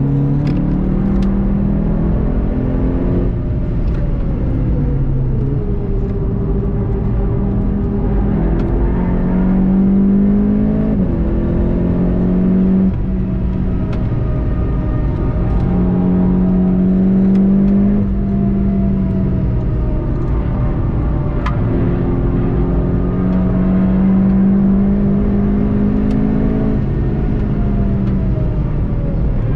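The turbocharged 2.0-litre four-cylinder of a VW Golf 7.5 GTI TCR, heard from inside the car on track. Its note falls as the car slows in the first few seconds, then rises again and again as it accelerates, dropping back at each upshift.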